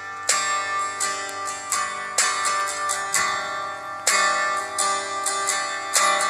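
Background music played on a plucked string instrument, notes struck in a steady rhythm.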